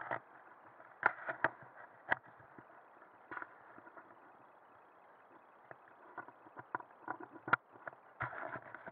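Scattered light clicks and knocks, a handful in the first few seconds and a quick cluster of them near the end.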